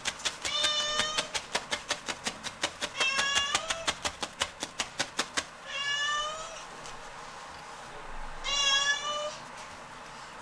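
A domestic cat meowing four times, each call drawn out. Through roughly the first half, a fast run of sharp taps, about five a second, from a felting needle stabbing wool on a foam sponge, stopping a little past halfway.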